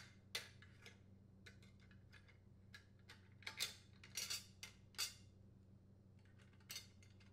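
Faint, scattered light metallic clicks and clinks as a sheet-metal heat shield and gaskets are fitted by hand over the mounting bolts of a small-engine muffler, with a cluster of them in the middle, over a faint steady hum.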